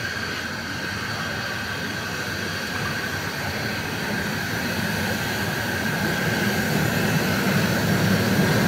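RhB G 4/5 narrow-gauge steam locomotive No. 108 moving slowly past, tender first. Steam hisses steadily with a thin high tone, and the rumble of the wheels and running gear grows louder as the engine draws near.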